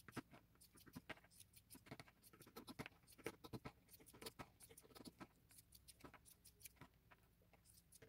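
Faint, irregular snips of scissors cutting fringe strips into a piece of black leather.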